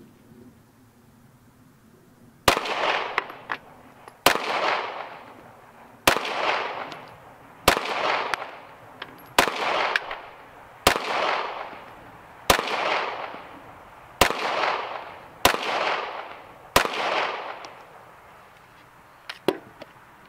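CZ P10 C 9mm pistol fired ten times in slow, steady fire, about one shot every second and a half, each shot trailing off in echo. A light click follows near the end.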